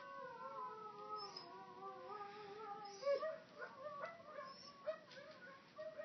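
Husky 'talking': a long wavering howl that slowly falls in pitch, then a louder sharp call about three seconds in, followed by a string of short rising-and-falling woo sounds.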